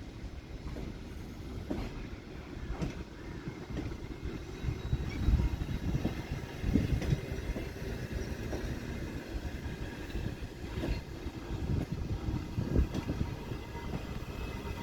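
Arriving passenger train rolling past, a steady low rumble with irregular knocks from the wheels over the rail joints.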